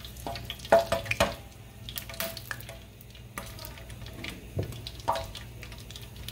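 Metal spoon clinking and scraping against a nonstick frying pan, a few sharp ringing taps, over a faint sizzle of oil with a garlic clove frying in it.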